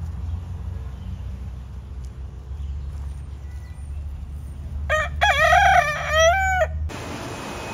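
A rooster crows once about five seconds in, a single call that rises and then holds its pitch, cut off abruptly. A low rumble runs under it, and after the cut there is a steady hiss.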